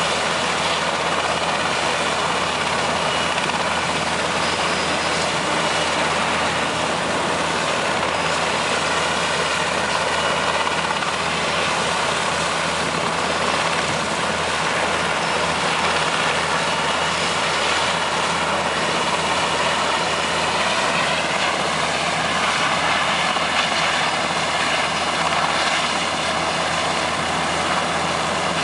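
Super Puma helicopter running on the ground with its main rotor turning but not lifting off: a steady turbine whine and rotor noise that holds level throughout.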